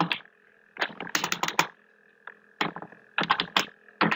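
Computer keyboard typing: a quick run of keystrokes about a second in, a single tap, then a second run from about two and a half seconds.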